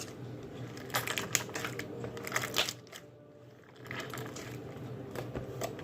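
Hands squishing and pressing homemade slime, giving a run of small sticky clicks and crackles that stops for about a second midway and then picks up again more softly.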